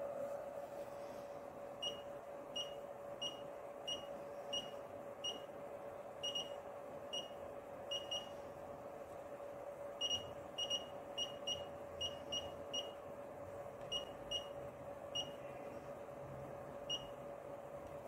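FeelElec FY6900 function generator giving a short, high beep with each click of its adjustment knob as the frequency is stepped. About two dozen beeps come evenly spaced at first, then in quicker clusters and more sparsely near the end, over a faint steady hum.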